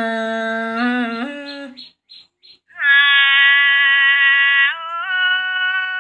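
A woman singing khắp, the Thái folk song style, heard through a phone, which gives a thin sound with the highs cut off. She sings long held notes, breaks off for under a second about two seconds in, then comes back on a higher held note.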